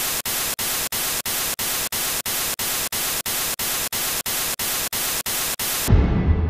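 Television static hiss, broken by short, regular gaps about three times a second, as the TV remote flips through channels. The static cuts off about six seconds in and a deep low rumble starts.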